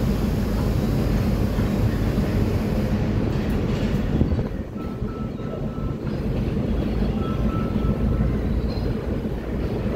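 Goods wagons of a train hauled by an S8 diesel multiple unit power car rolling past slowly, making a steady rumble of wheels on the rails with a low diesel drone underneath. A faint high squeal comes twice in the second half.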